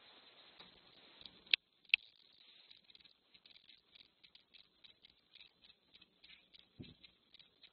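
Cat sniffing and nosing right against a security camera's microphone: two sharp knocks about a second and a half in, then a run of small, rapid, irregular clicks and snuffles, with a low bump near the end.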